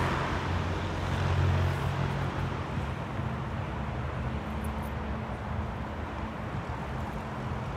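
Steady outdoor background noise with a low rumble, strongest in the first two seconds and then easing off.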